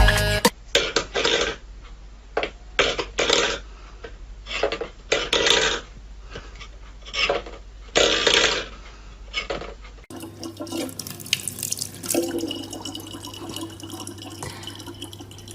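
Water splashing in short irregular bursts. About ten seconds in it gives way to a tap running steadily, with a low hum beneath.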